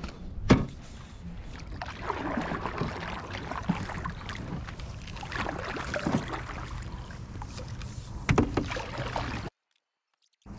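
Canoe being paddled: the paddle blade swishes and splashes through the water stroke after stroke, with a few sharp knocks of the paddle against the canoe, the loudest about half a second in and again near the end. The sound cuts off completely for about the last second.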